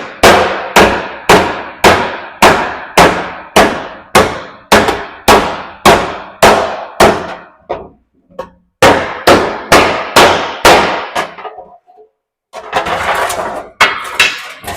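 Hammer beating on sheet metal of an ear corn picker to straighten it: loud ringing blows about two a second, a short pause, then a few more. Near the end a rough scraping of metal for a couple of seconds.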